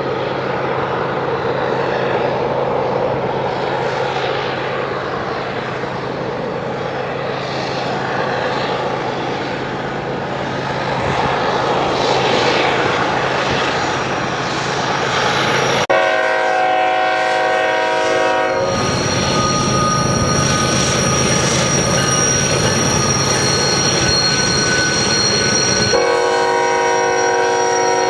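Diesel freight locomotives rumbling past with a heavy train. About halfway through, the lead locomotive's air horn sounds a blast of a couple of seconds, high steady wheel squeal rings over the passing train, and the horn sounds again near the end.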